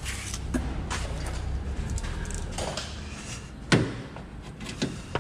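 Scattered clunks and knocks, the loudest a sharp knock a little past halfway, over a low steady hum.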